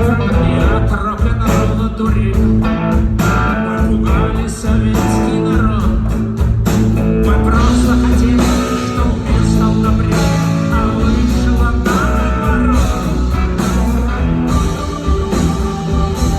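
A rock band playing live, with guitar to the fore over bass and drums.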